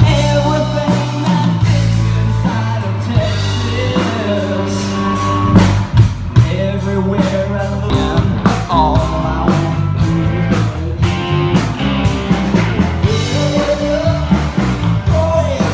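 Live rock band playing loud: a man singing into a microphone over electric guitars and a drum kit keeping a steady beat.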